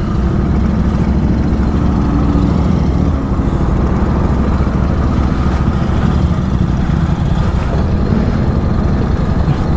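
Superbike engine running steadily while being ridden, with rushing road and wind noise and no marked revving.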